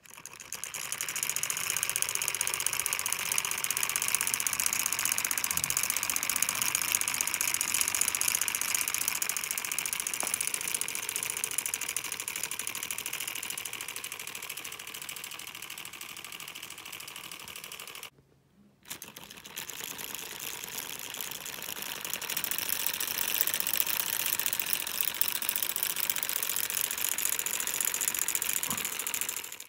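Homemade solenoid engine running fast, a rapid mechanical clatter from its coil-driven plunger and wire crank. The clatter breaks off for a moment a little past halfway, then picks up again.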